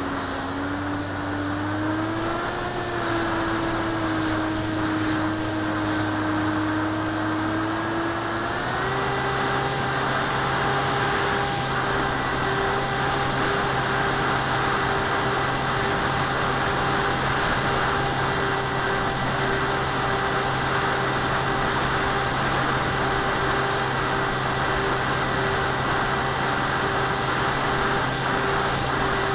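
ParkZone Icon A5 RC plane's electric motor and propeller whining, heard from on board the plane, with a rush of air over it. The pitch rises a little about two seconds in, then steps up higher near nine seconds and holds steady.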